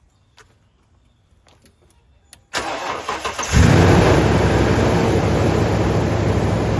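Toyota Tundra's engine cranked by the starter for about a second on a jump-pack boost, its battery too weak to crank it alone, then catching and settling into a loud, steady high idle. A few faint clicks come before the cranking.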